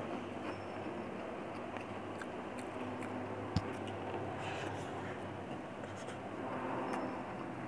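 Eating by hand: fingers scraping and gathering rice in a plastic food container, with soft chewing, over a steady low hum. One sharp click about three and a half seconds in.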